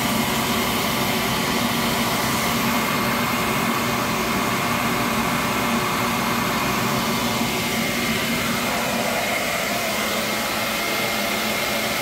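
Beckett commercial gas burner's combustion-air blower running steadily during the pre-purge before ignition: an even rushing noise with a faint steady whine over it.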